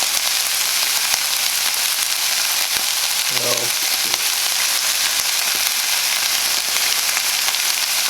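Chicken breasts sizzling steadily in a frying pan under a topping of pizza sauce and cheese.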